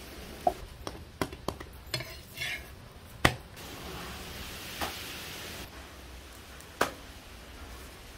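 Cooking sounds: scattered sharp knocks and clinks of utensils and a spatula against a tawa and clay pots, with a soft sizzle of a poli cooking in ghee on the hot tawa a little past the middle.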